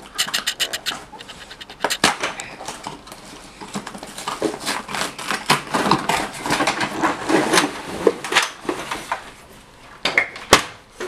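Cardboard box being torn open by hand: irregular tearing, crackling and rustling of cardboard, starting with a quick run of ticks. A couple of sharp knocks near the end as the plastic game table is pulled out.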